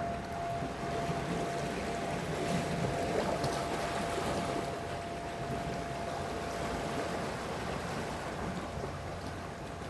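Sea waves washing, a steady rushing noise, with a single steady tone held over it that fades out about halfway through.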